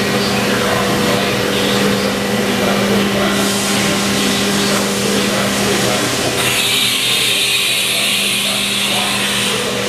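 Steady hum of running machine-shop machinery, with several held tones. A loud hiss sets in about six and a half seconds in and stops just before the end.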